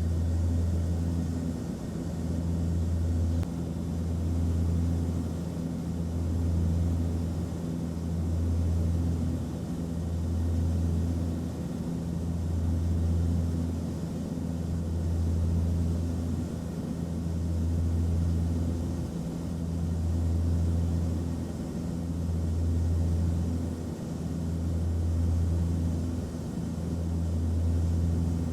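Aircraft cabin noise in flight: a steady low engine drone over a constant rush of air, the low hum swelling and easing about every two seconds.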